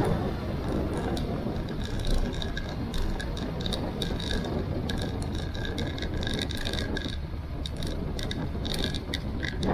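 Motorcycle riding along a narrow mountain road, its engine settling from a loud pull to a lower, steady running note, with frequent small rattles and ticks over the rumble.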